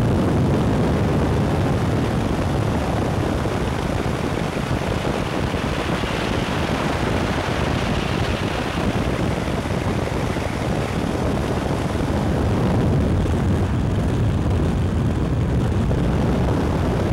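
Steady rush of wind and road noise from a moving vehicle, with wind buffeting the camcorder microphone.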